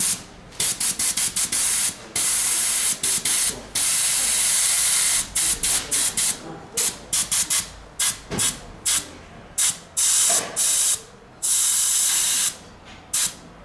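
Compressed air hissing from a workshop blow gun in on-off bursts: a run of quick short taps, then longer blasts of about a second, starting and stopping throughout.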